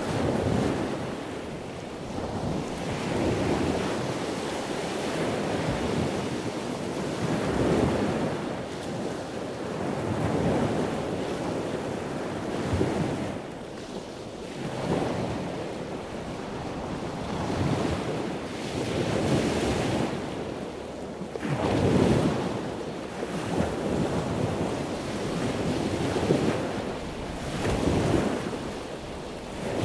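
Sea waves breaking and washing on a beach, surging and falling back every few seconds, with wind.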